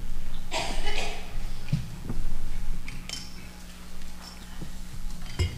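Small communion cups clinking and knocking as a congregation sets them down after drinking, with scattered rustling.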